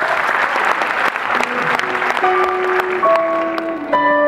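Concert audience applauding while a keyboard starts a song intro with long held notes; the applause thins out about three seconds in and the keyboard notes take over.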